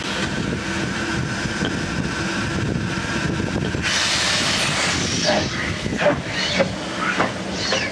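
Small Andrew Barclay 0-4-0 saddle-tank steam locomotive moving off slowly. A steady rumble gives way about four seconds in to a loud hiss of steam from the cylinder drain cocks, followed by short chuffs of steam roughly every half second.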